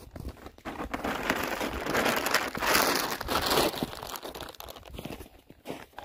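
Plastic birdseed bag crinkling as it is tipped and shaken over a platform feeder, with seed pouring out onto the tray. The sound builds, is loudest in the middle, then tails off.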